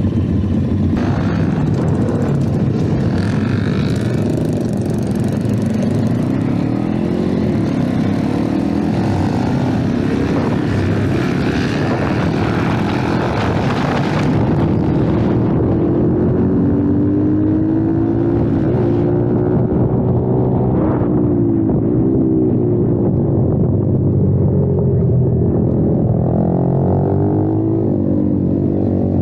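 Kayo TT 140 pit bike's single-cylinder four-stroke engine heard from on board, running hard on a track. Its pitch rises again and again as it accelerates and falls back at each gear change or on closing the throttle into corners.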